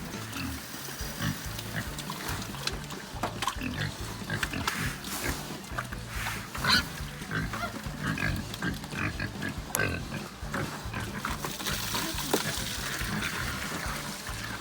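Hogs grunting and squealing while they eat their evening feed, a run of short irregular calls.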